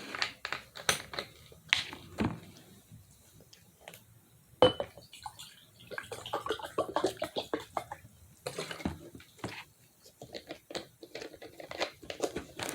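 Close-up eating sounds of someone chewing fried chicken: irregular crackling crunches and wet mouth clicks, with one sharp click about a third of the way in and a dense run of crunching in the middle.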